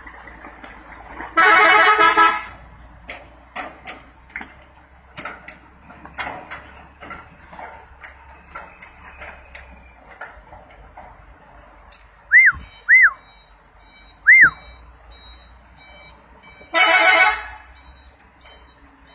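Telolet horn, a multi-tone air horn, sounding two loud blasts about a second long each, one just after the start and one near the end. Between them come scattered light clicks and knocks and three short chirps that rise and fall in pitch.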